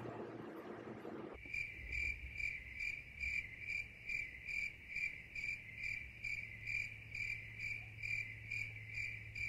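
Cricket chirping in a steady, even rhythm of about two high chirps a second, starting abruptly about a second and a half in, over a faint low hum; before it, a breezy outdoor noise.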